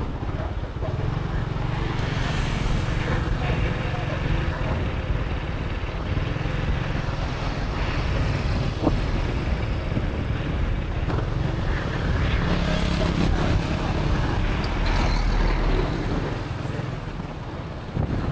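Motorbike ride along a city road: a steady low rumble of engine, tyres and passing traffic, a little louder about two-thirds of the way in.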